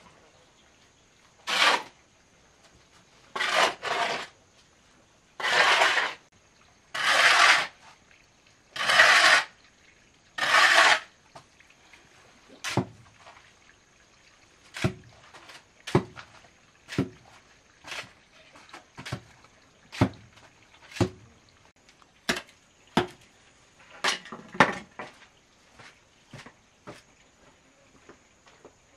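Hoe blade scraping through a pile of sand and cement on a concrete floor, one long scrape about every second and a half. About halfway it changes to short sharp knocks roughly once a second as the blade chops into the wet mix.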